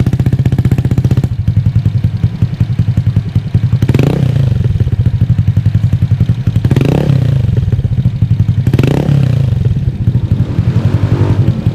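Honda AirBlade 150 scooter's single-cylinder engine, bored out to 170cc, running through a Yoshimura Alpha slip-on exhaust with its silencer removed. It idles loudly and is revved three times, about four, seven and nine seconds in.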